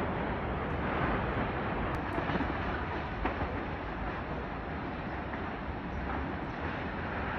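Strong storm wind rushing with a low rumble as a tornado funnel stands nearby.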